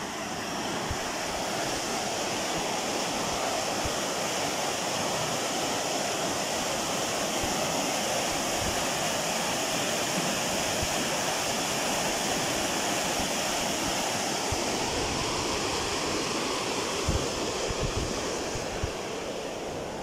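Steady rushing and splashing of fast white water pouring through a gap between rocks in a river, easing a little near the end.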